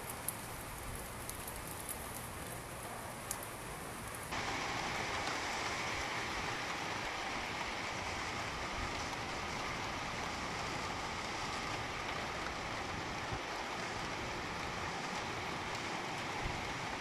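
Steady rain falling, a dense even hiss. About four seconds in it turns suddenly louder and fuller.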